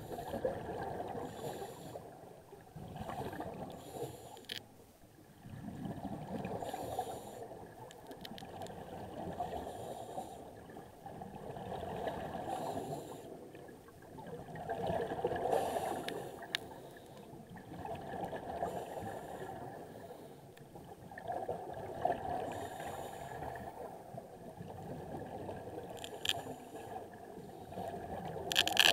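Scuba divers breathing through regulators, heard underwater: bubbles gurgle up every few seconds on each exhalation, with hissing inhalations between, and a few sharp clicks.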